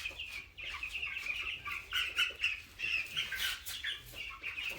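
A flock of two-week-old broiler chicks peeping, many short high calls overlapping continuously.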